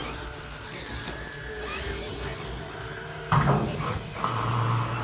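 Scale RC crawler truck's electric motor and gear drivetrain whining under throttle, with a sudden loud burst of noise partway through and a steady high whine near the end.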